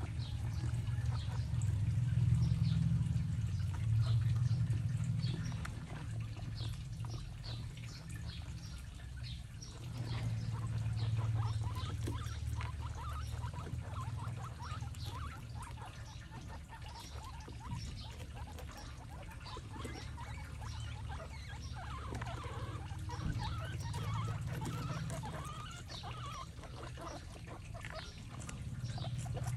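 Guinea pigs munching vegetables and watermelon: a dense run of small wet crunching clicks. Under it runs a low steady hum that swells and fades.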